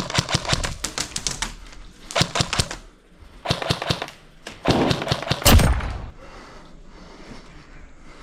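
Airsoft electric rifle firing on full auto in four rapid bursts of clicking shots, the last and longest burst the loudest, then the firing stops about six seconds in.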